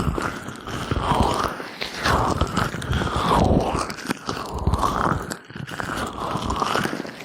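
Gloved hands massaging oiled ears, a wet, crackling squelch of glove on oily skin in slow rubbing strokes, about one sweep a second.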